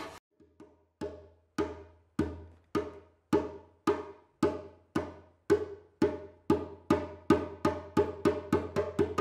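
A drum struck in single even strokes that gradually speed up, from under two a second to about three a second near the end, each stroke booming deep and dying away.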